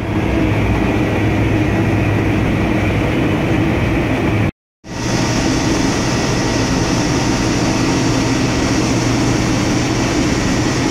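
Steady, loud drone of a ship's engine room, with the other diesel generators and machinery running. The sound breaks off for a moment about halfway through and comes back with more hiss.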